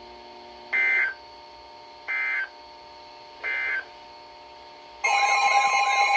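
Emergency Alert System data tones from a weather radio: three short end-of-message bursts about a second apart over a steady electronic hum. About five seconds in, the loud two-tone EAS attention alarm starts and holds.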